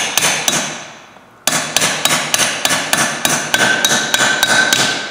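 Hammer blows on a 21 mm socket set on a bearing, driving the bearing down onto a Toyota solid front axle knuckle. The strikes are sharp and ring metallically, about three a second. A short pause comes early on, then steady hammering resumes.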